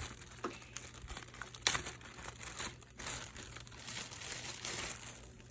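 Plastic packaging crinkling and rustling as it is handled, with irregular crackles and small clicks.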